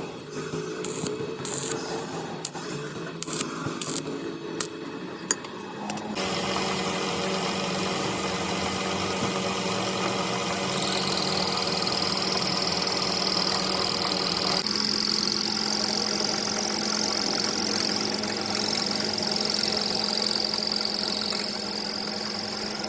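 Metal lathe: a few seconds of clicking and knocking, then the machine starts and runs with a steady hum. About ten seconds in a high-pitched whine joins, and its tone shifts again a few seconds later.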